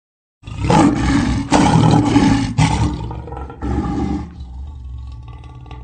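Lion roaring: a run of about four loud calls starting about half a second in, then dying down to quieter sounds.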